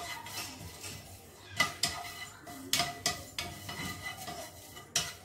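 Wooden spatula stirring curry leaves dry-roasting in a non-stick frying pan, scraping and knocking against the pan with several sharp taps, the loudest about one and a half, three and five seconds in.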